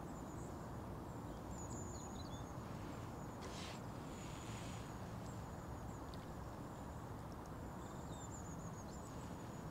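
Quiet outdoor ambience: a steady low rumble of wind and handling noise, with faint, thin, high-pitched chirps repeating throughout and a couple of soft rustles in the middle.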